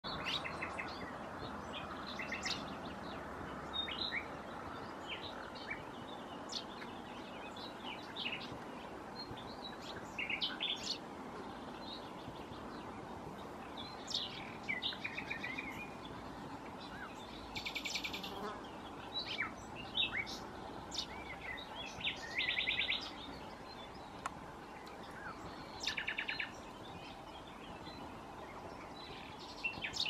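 Birds chirping in short, scattered notes, with a fast, dry trill on one pitch heard three times in the second half, the kind of rattle the cirl bunting sings. A steady, faint hum of insects runs underneath.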